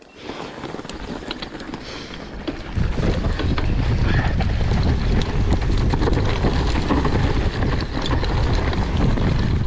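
Wind buffeting the microphone over the rumble of mountain bike tyres on a dirt trail, with scattered clicks and rattles from the bike. The rush gets louder about three seconds in.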